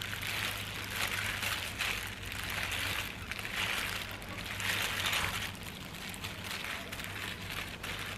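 Disposable plastic gloves rustling and crinkling as hands roll and squeeze a gimbap roll of laver and rice, in repeated soft swells about once a second, over a low steady hum.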